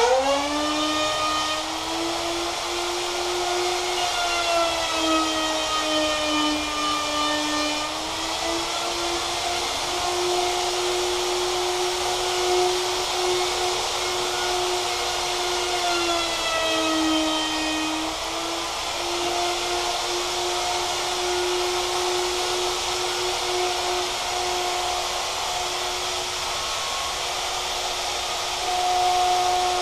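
Wood router spinning up and then cutting the braid-relief groove along a slot car track's slot with a homemade pin-guided relief cutter bit: a steady high whine whose pitch sags as the bit bites, about six to eight seconds in and again around seventeen seconds.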